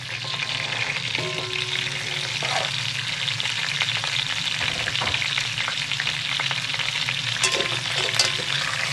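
Chicken frying in a hot pan, a steady loud sizzle that jumps up at the start as the chopped vegetables go in and are stirred, with a couple of sharp utensil clicks near the end.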